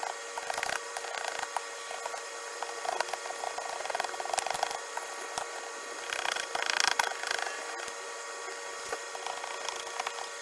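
Razor-blade window scraper worked across windshield glass in repeated strokes, scraping off cured windshield-repair resin: a scratchy scraping with many small clicks, louder around the middle and again a little later.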